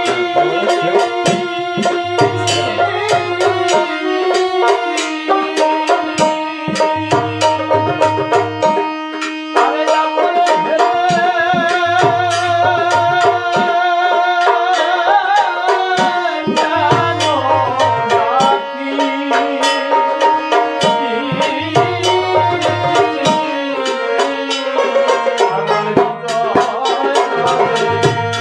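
Bengali bijoy geeti folk song music: hand-drum percussion keeps a steady, repeating beat under sustained melody instruments.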